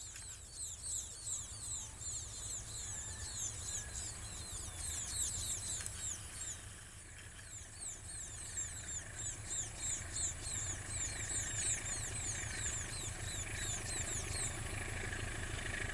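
Distant KAI diesel-electric locomotive's engine giving a low, steady rumble as it approaches under load. A fast run of high, repeated chirps sits over it and stops near the end.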